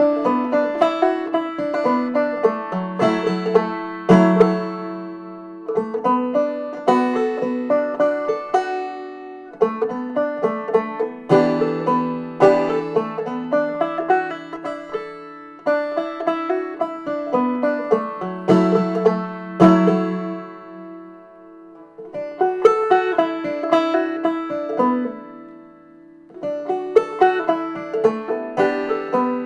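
Banjo music: a banjo picking a tune in quick plucked notes, phrase after phrase with brief pauses between them.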